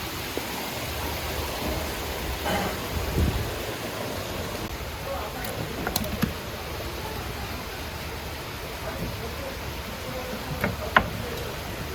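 Steady background hiss with faint, indistinct voices and a few short clicks, the sharpest near the end.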